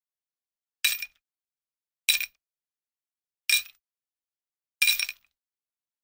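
Four short, bright clinks, evenly spaced about one and a quarter seconds apart, each with a brief metallic ring: a title-animation sound effect.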